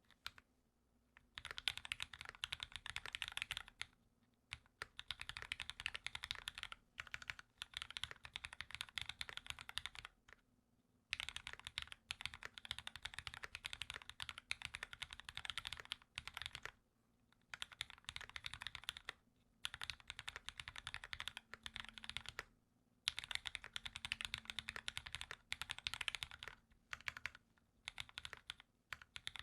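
Steady fast typing on a custom mechanical keyboard, a Dolphin Linger RE with an aluminium plate and lubed Cherry Black linear switches, in runs of several seconds broken by short pauses. The spacebar sounds slightly muffled because its Permatex-lubed stabilizer had not yet settled after assembly.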